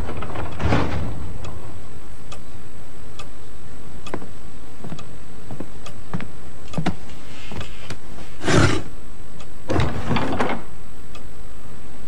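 Wall clock ticking about once a second. Two louder, short swishing sounds come about 8.5 and 10 seconds in.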